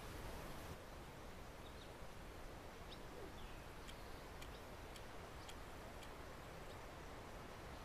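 Faint outdoor ambience with small birds chirping now and then, and a wristwatch ticking lightly about twice a second through the middle.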